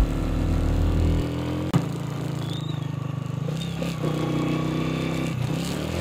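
Motorcycle engine running while riding, a steady engine note that shifts slightly in pitch a few times. A single short knock comes just under two seconds in.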